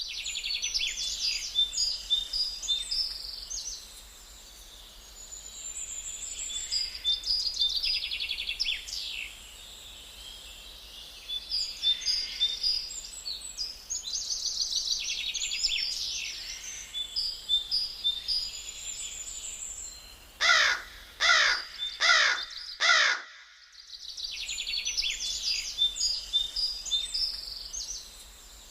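Birdsong ambience: several small birds chirping and trilling, with a crow cawing four times about twenty seconds in, followed by a brief break before the chirping starts again.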